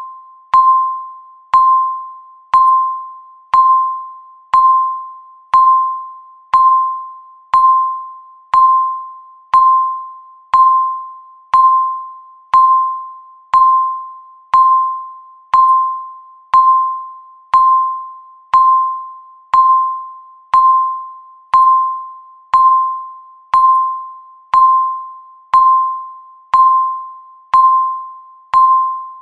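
Countdown timer's tick sound: a single pitched ding struck once every second, each fading out before the next one, in an even, unbroken rhythm.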